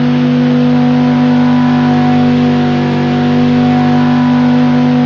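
Recorded V10 engine sound held at a steady rpm, one unbroken even-pitched note that fades in and out. It is played as a reference sample of a V10's sound.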